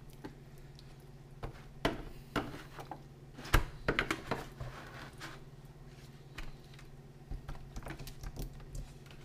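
A spoon and hand working barbecue sauce over ribs in a disposable aluminium foil pan: irregular light clicks and taps of the spoon on the foil, with the sharpest cluster of taps about three and a half seconds in.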